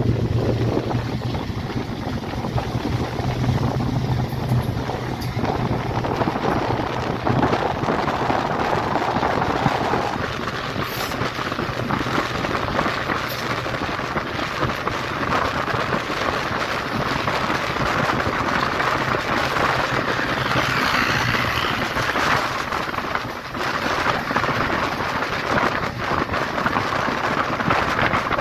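Passenger train running, heard from an open coach window: a steady rush of wind on the microphone over the rumble of the train and its wheels on the track, with scattered short clicks. A low hum sits under it in the first third.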